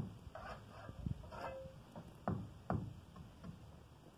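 Mason's steel trowel working mortar on a brick vault: a handful of sharp taps against the bricks with short scraping strokes in between.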